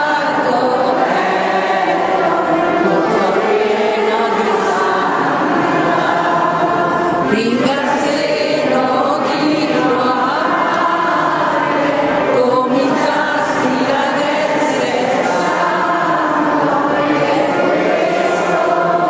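Church congregation, mostly women, singing a hymn together in a steady, continuous chorus, carried by the echo of a large church.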